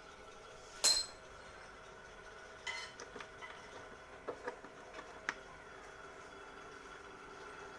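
A sharp clink of hard objects that rings briefly, followed by several lighter taps and clicks, over a faint steady hum.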